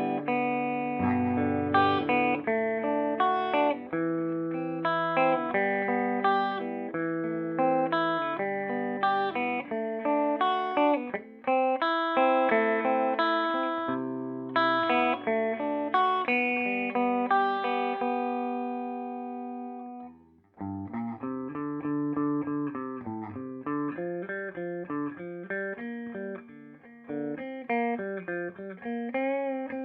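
Electric guitar played through a Peavey Bandit 112 combo amp on its clean channel in classic voicing, using the high-gain input. Chords ring out, and one is held and fades away about 17 to 20 seconds in. After a brief break comes a run of quicker, softer notes.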